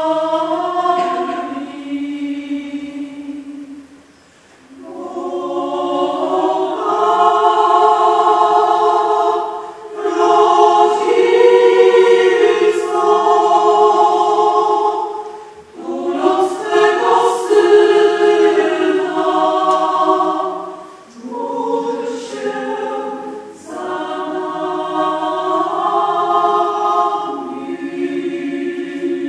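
Mixed choir of women's and men's voices singing held chords, phrase by phrase, with brief breaks between phrases.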